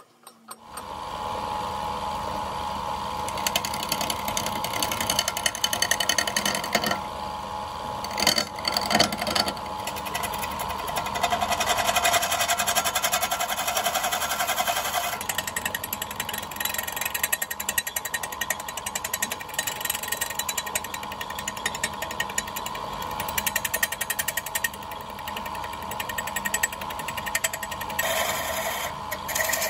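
Wood lathe running while a hand-held turning tool cuts a spinning dried coconut mounted on bamboo: a steady motor hum under a rapid rattling chatter of the tool on the work. It starts suddenly at the very beginning.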